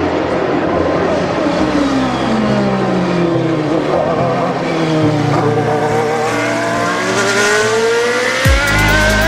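Race car engine, its pitch falling slowly for several seconds and then climbing again as it revs, over background electronic music with steady bass notes and a deep bass drop near the end.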